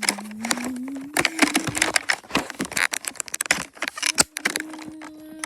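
Wooden toy trains clattering, with many quick clicks and knocks of wood on wood. A steady low hum slowly rises in pitch over the first two seconds and comes back about four seconds in.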